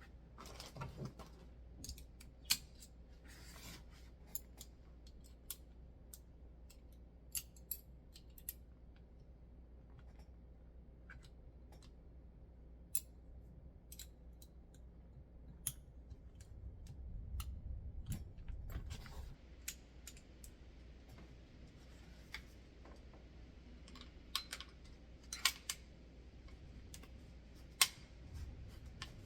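Small metal pistol parts clicking and tapping as an AF Romulus pistol is reassembled, in scattered sharp clicks with some low rubbing and handling noise about two-thirds of the way through.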